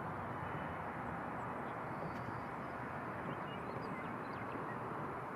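Steady, even roar of a taxiing Boeing 787's jet engines at taxi power, heard from a distance. A few faint bird chirps come through in the middle.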